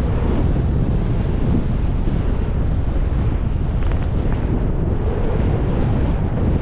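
Steady rush of wind buffeting the microphone of a skier's camera while skiing downhill, mixed with the skis sliding over tracked snow.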